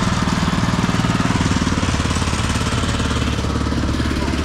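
Motorized sugarcane juice crusher running steadily, its small engine chugging with a rapid, even pulse as cane is pressed.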